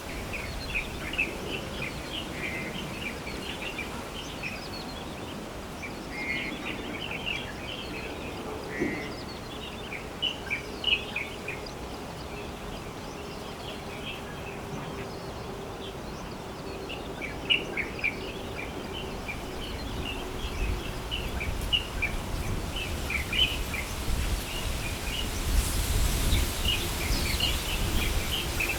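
Light-vented bulbuls and plain prinias calling, with other birds, in grassland: a dense run of short, high chirping notes, with a few buzzy note clusters. Under them is a low rumble that grows stronger near the end.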